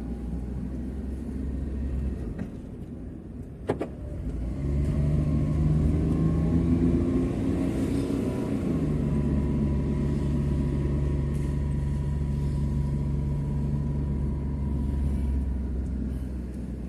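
A motor vehicle's engine running under a steady low rumble. After a sharp click, it picks up about four and a half seconds in and rises in pitch, drops in a shift about halfway through, then holds steady as it cruises.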